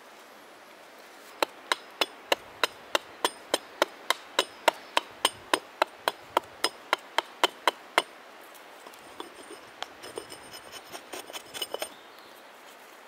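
Small hatchet chopping away the outside of a birch kuksa blank held against a log: a run of quick, even strokes, about three and a half a second, lasting some six seconds, then lighter, irregular taps near the end.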